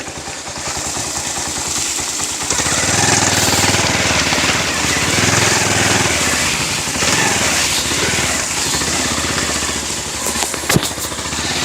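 Motorcycle engine running under way, its steady low firing note rising in level about two and a half seconds in, mixed with a broad rushing noise; a single sharp click near the end.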